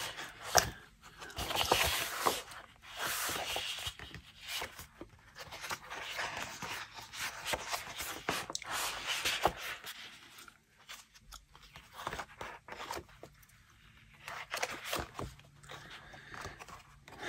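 Sheets of patterned scrapbook paper rustling and sliding against one another as a stack is flipped through and fanned out by hand, in irregular bursts with a quieter stretch past the middle.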